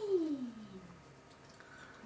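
Black Labrador retriever whining: one drawn-out whine that falls steadily in pitch over the first second, then fades.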